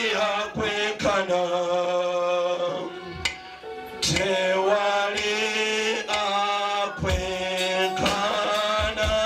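A man singing a slow gospel worship song through a microphone in long held phrases, over a steady sustained low note, with backing singers joining in.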